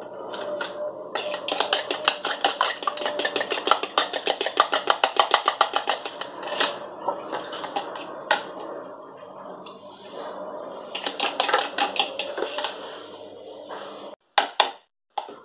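Eggs being beaten with a fork in a plastic bowl: rapid clicking and tapping of the fork against the bowl, about eight strokes a second. The strokes slow in the middle, pick up again, and stop about fourteen seconds in, followed by a few separate knocks.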